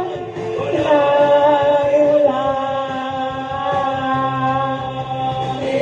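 A small girl singing long, held notes into a corded microphone, her voice amplified through a speaker.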